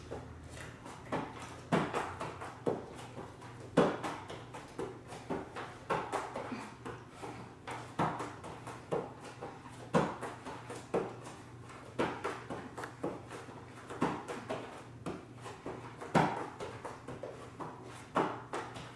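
Hands and forearms thudding onto a yoga mat over a wooden floor while moving up and down between forearm plank and high plank. Short knocks come about once a second, with a louder one every two seconds or so.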